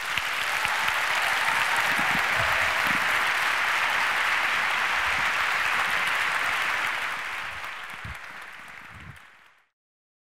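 Audience applauding steadily, then fading away over the last few seconds.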